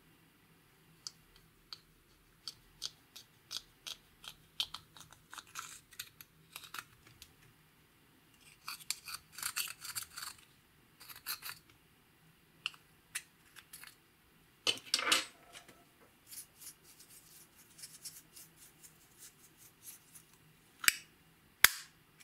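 Small metal spatula scraping and crumbling pressed eyeshadow out of its plastic compact: irregular runs of short scratchy clicks and crunches, busiest in a few bursts, with two sharp clicks near the end.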